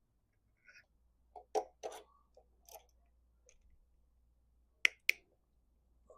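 Scattered light clicks and taps from handling small tools and the brake cable's soldered end fitting, with two sharp clicks in quick succession about five seconds in.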